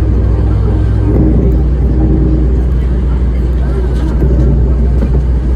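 Airport apron shuttle bus running, a steady low engine drone heard from inside the bus, with faint voices under it.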